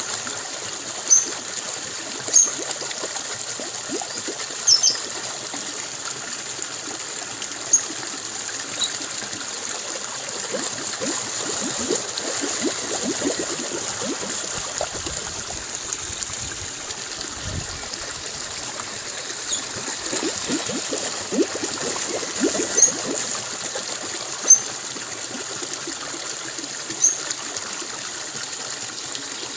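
Small stream trickling and gurgling, with short high bird chirps every second or two over it.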